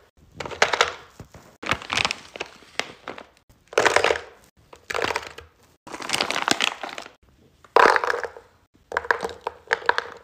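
Frozen fruit pieces clattering and rattling into a plastic sectioned serving tray in about seven short bursts, with the crinkle of a plastic bag of frozen blackberries being handled.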